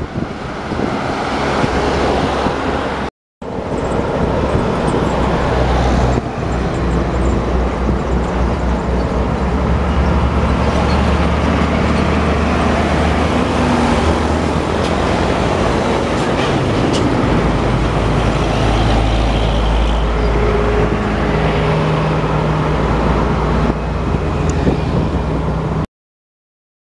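Heavy diesel trucks passing close by in road traffic, their engines running with a steady low drone. The sound drops out briefly about three seconds in and cuts off shortly before the end.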